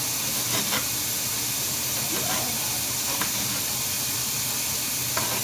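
Steady sizzling hiss of food cooking in an Instant Pot, with a few faint knife taps on a chopping board.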